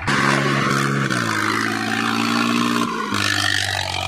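Swaraj 735 tractor's three-cylinder diesel engine running steadily. Its pitch steps down about a second in, and there is a brief break near three seconds.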